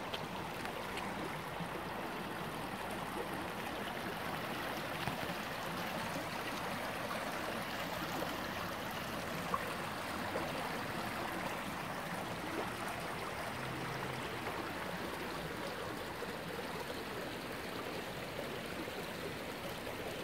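Small shallow brook trickling and murmuring over stones and gravel, a steady rush of running water.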